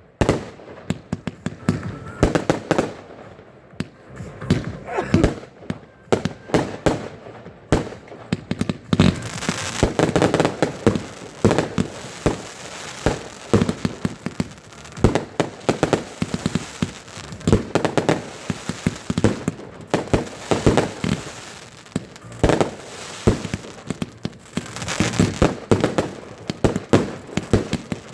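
Fireworks display: a rapid, continuous string of bangs and crackling bursts from shells and firecrackers, densest from about nine seconds in.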